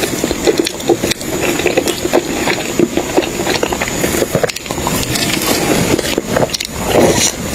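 Close-up chewing and mouth sounds of someone eating food, with a steady run of small wet clicks and crackles.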